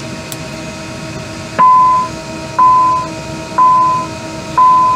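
Embraer 170 cockpit aural alert beeping, a mid-pitched tone about once a second, starting about a second and a half in, four beeps, each sharp at the start and fading over half a second. It sounds after the rudder flight-control mode button is pressed and signals the rudder fault this test brings up. A steady cockpit hum runs underneath.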